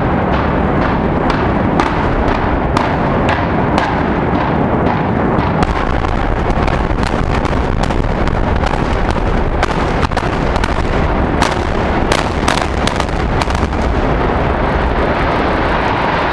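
Explosive demolition of a high-rise building: a loud, continuous rumble as the structure collapses, scattered with many sharp cracks and pops that come thickest in the middle.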